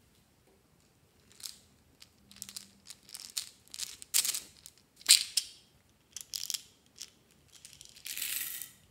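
Small plastic jar of beads handled and opened, giving sharp plastic clicks and crackles, two of them loud about four and five seconds in. Near the end, small beads pour out of the jar in a short rattling rush lasting about a second.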